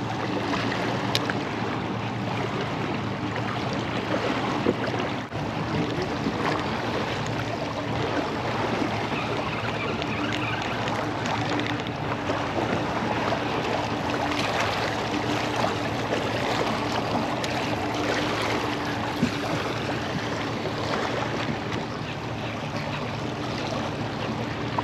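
Wind on the microphone and water lapping against a small boat on open shallow water, over a steady low hum.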